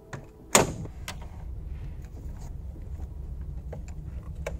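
Metal knock from handling the mini lathe's tailstock tooling while swapping the drill chuck for the live center: one sharp clunk about half a second in, then a few light clicks over a low rumble.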